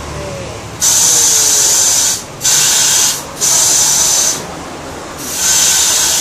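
Compressed air hissing in four short bursts, each about a second long with brief gaps between them, from a tyre-shop air line.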